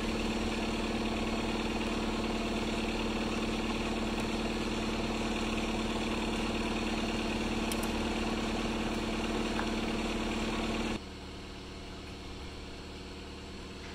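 Hitachi EX150 excavator's diesel engine running steadily at idle, a constant hum that drops abruptly to a fainter level about eleven seconds in.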